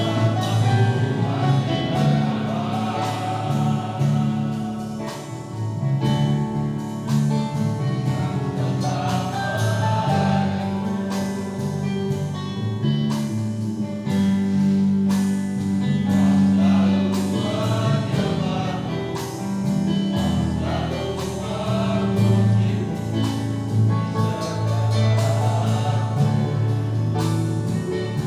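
Men's church choir singing an Indonesian gospel song in harmony over a band accompaniment with a steady drum beat.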